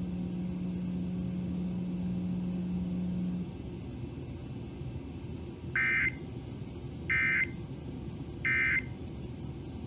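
Emergency Alert System broadcast: a steady low hum that cuts off about a third of the way in, then three short, identical data-tone bursts about a second apart. These are the EAS end-of-message (EOM) tones that close the alert.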